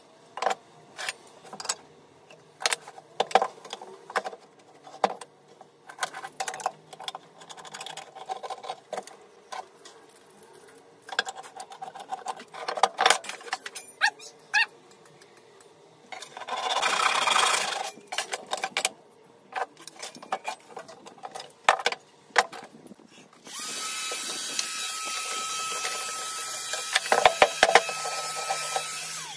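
Wooden and metal workshop tools knocking and clattering on a wooden workbench as clamps, a board and a metal rod are handled, with a brief scraping rush about 17 seconds in. Near the end a small power tool runs steadily for about six seconds, then cuts off.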